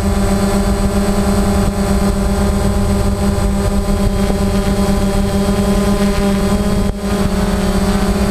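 Multirotor camera drone's motors and propellers running steadily, heard up close from the drone's own onboard camera as a loud, even hum; it dips briefly near the end.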